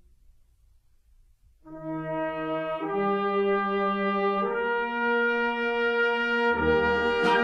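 Brass band music: after a brief near-quiet start, held brass chords come in and change twice, and a low beat with a cymbal-like hit joins near the end.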